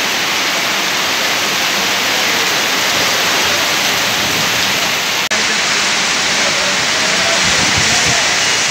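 Heavy rain pouring down, a loud steady hiss of dense rainfall, broken by a momentary dropout about five seconds in.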